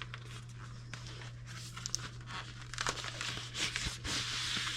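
Cardboard and packaging crinkling and tearing as a small box is opened by its pull tab, with scattered small clicks and rustles and a longer tearing hiss about three seconds in.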